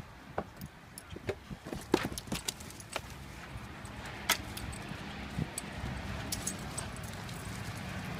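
Dog collar tags jingling and clinking in short irregular bursts as Labradors climb about in and jump out of a car's back seat, over a steady low hum.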